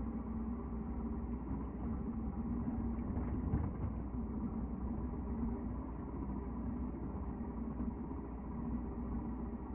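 Mutt Akita 125's 125cc single-cylinder engine and exhaust running steadily at an even, fairly low engine speed.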